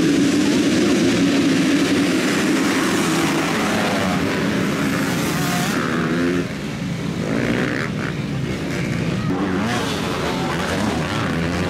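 A full field of motocross bikes running together at the start gate, their engines rising in pitch as the pack accelerates away. About six seconds in the sound drops a little and turns to bikes racing farther off.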